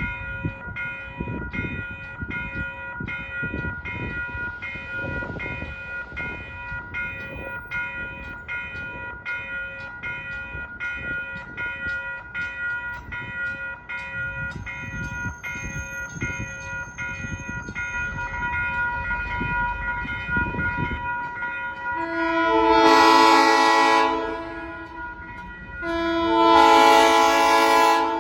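A crossing bell rings about twice a second over the low rumble of an approaching South Shore Line electric commuter train. Near the end the train's horn sounds two long blasts.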